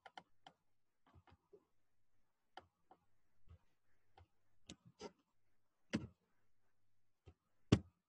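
Quiet, irregular sharp clicks and taps, about a dozen, the loudest about six seconds in and near the end, over a faint low hum.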